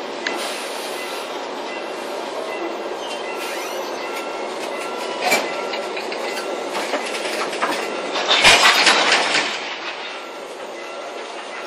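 Korail freight train's boxcars rolling past on steel rails: a steady rumble of wheels on track with clickety-clack at the rail joints. The clacks are loudest in a burst of them about eight to nine and a half seconds in.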